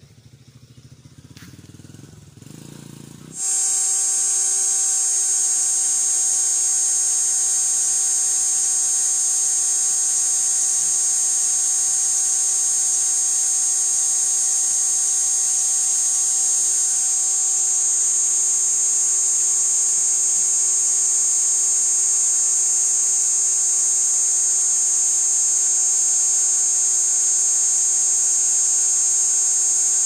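Cicada starting its call abruptly about three seconds in: a very loud, steady, high-pitched buzz with a few lower humming tones under it, held without a break.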